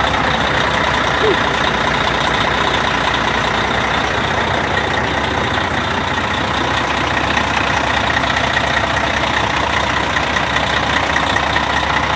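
Caterpillar C15 ACERT inline-six diesel of a 2005 Peterbilt 379 idling steadily, freshly started on a cold morning.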